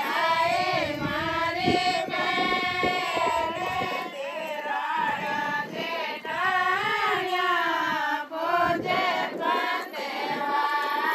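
Several high female voices singing a Rajasthani ritual folk song together, the melody rising and falling in long sung phrases.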